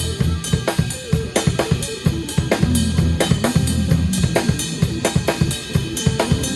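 Live jazz-fusion band playing a fast groove with the drum kit loudest: busy snare, bass drum and cymbal hits over an electric bass line.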